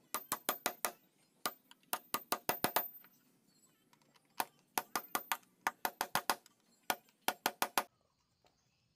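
Hammer driving nails into a wooden cabinet frame: sharp, ringing strikes in quick runs of about five a second, with short pauses between runs. The strikes stop shortly before the end.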